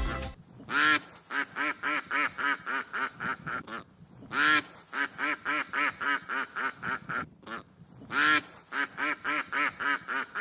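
Duck quacking: three loud, longer quacks about four seconds apart, each followed by a quick run of shorter quacks at about four a second.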